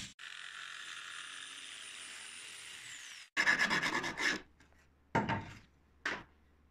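A drill bores holes in plywood with a faint steady whine that winds down after about three seconds. Then a flat metal file rasps back and forth in the slot in a quick run of strokes, the loudest part, followed by two shorter scrapes.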